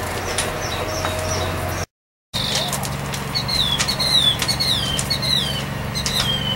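Small birds chirping outdoors in quick, high, falling whistled notes, repeated many times, over a low steady hum. The sound drops out completely for a moment about two seconds in.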